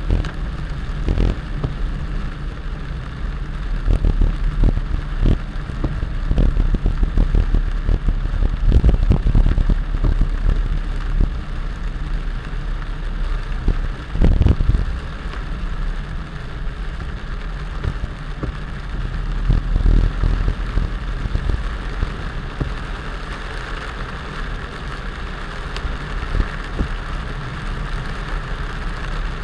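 Heavy rain over the steady low rumble of a running vehicle, with many irregular knocks and thuds that are thickest in the first half.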